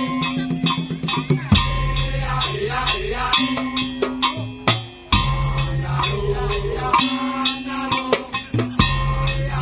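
Madurese daul (tong-tong) percussion ensemble playing: fast, dense strokes on drums and wooden percussion over sustained low bass notes, with melodic lines above. The bass drops out briefly about four to five seconds in, then the full band comes back.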